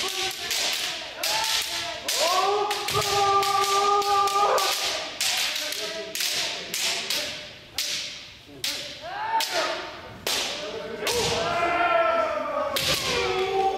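Kendo practice with bamboo shinai: an overlapping run of sharp cracks as the swords strike armor, mixed with stamping feet on the wooden gym floor. Several drawn-out kiai shouts ring over it, a long one a couple of seconds in and another that falls in pitch near the end.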